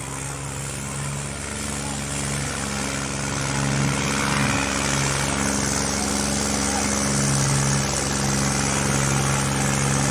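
Diesel tractor engine running hard under heavy load as it drags a sandbag-weighted disc harrow through deep soil. A steady drone that grows louder over the first few seconds, with a brief dip in pitch about four seconds in.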